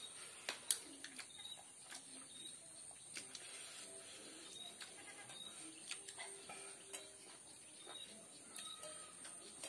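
Eating sounds from a person eating by hand: scattered chewing and lip-smacking clicks, with one sharp smack under a second in. Short bird calls sound faintly in the background.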